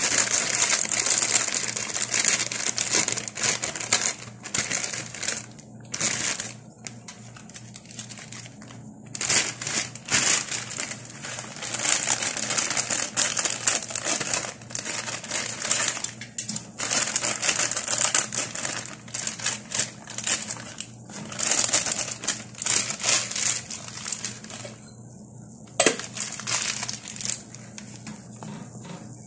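Plastic instant-noodle packaging being handled and opened, crinkling in bursts of a few seconds with short pauses between, over a faint steady low hum.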